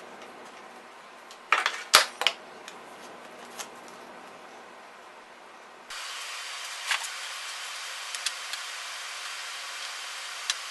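Sharp clicks and light knocks of small wooden toy parts and a hand tool being handled on a plywood workbench, with a quick cluster of loud clicks about two seconds in. A few scattered fainter clicks follow over a steady background hiss.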